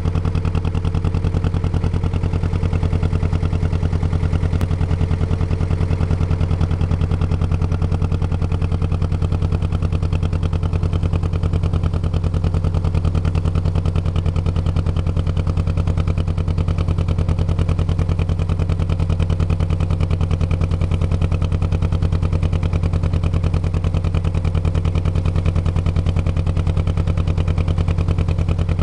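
Motor launch's engine running steadily under way, a constant low drone.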